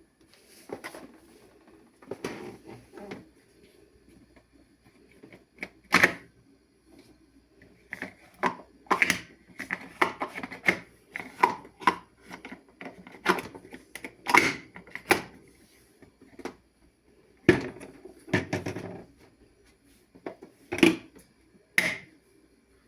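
Irregular clicks, knocks and clunks of a new HQ countertop dishwasher being handled, its stiff door latch and plastic parts worked by hand, with a few louder knocks among them.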